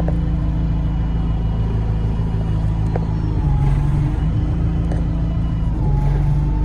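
Bus engine and running gear heard from inside the passenger saloon: a steady low drone whose engine note shifts a couple of times, with a few light rattles.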